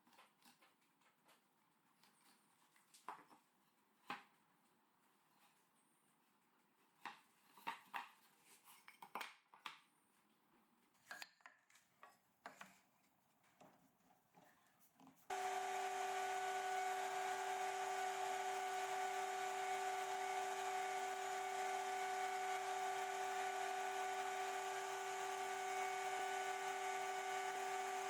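Scattered light clicks and knocks of wood and tools being handled. About halfway through, an electric power tool's motor starts suddenly and runs at a steady, unchanging pitch.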